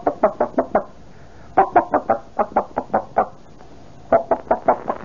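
A man imitating a hen with his voice: three runs of quick, short clucks with brief pauses between them. This is the sound of a chicken walking around the yard pecking at gravel, announcing that nothing special is happening.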